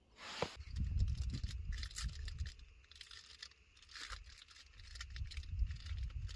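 Crinkling and tearing of a snack wrapper being opened by hand, as scattered short crackles over a steady low rumble.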